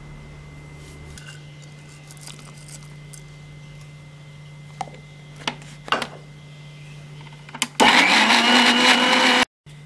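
Electric mixer grinder with a steel jar running in a short burst of under two seconds, grinding ginger and green chillies into soaked urad dal batter, then cutting off suddenly. Before it there are a few sharp knocks as the jar and lid are handled.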